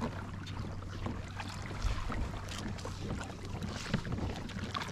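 Water lapping and trickling against a kayak hull moving over calm sea, with small scattered splashes and light wind on the microphone.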